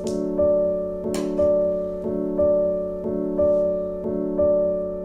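Gentle background piano music, a chord struck about once a second and left to fade. Over it come two crisp cuts of a knife through okra onto a wooden chopping board, one at the start and one about a second in.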